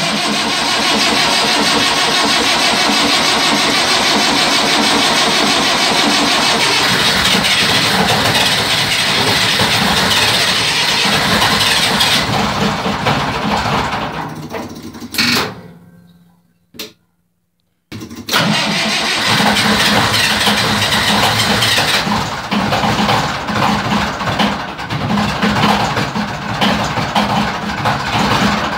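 Large diesel generator engine on a cold start, running loud. About twelve seconds in the sound fades away and drops to near silence for about two seconds, then the engine is heard running again with a steady low hum.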